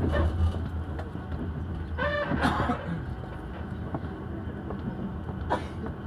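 Passenger train running, heard from inside the carriage: a steady low rumble of the wheels on the rails. A brief higher-pitched sound comes about two seconds in, and a short noise near the end.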